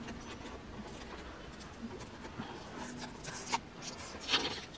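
Cardboard box being opened by hand: fingers pry and rub at the end flap, giving short scratchy scrapes and rustles of cardboard, louder in the second half.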